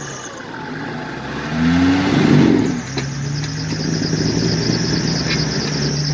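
Off-road trophy prototype buggy's engine revving up about two seconds in, then running steadily, as the stuck buggy tries to climb out of a mud pit; one wheel is not turning, which an onlooker puts down to the lack of differential locks.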